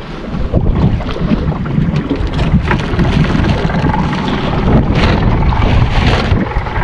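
Wind buffeting the microphone aboard a small open boat at sea: a loud, steady rumble that swells in gusts.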